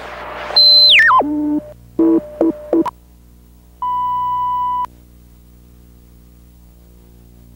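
Videotape test and transfer audio. A high electronic tone slides down in steps and breaks into a few short clipped tones. Then a steady 1 kHz reference tone sounds for about a second with the colour bars, and a low steady hum remains.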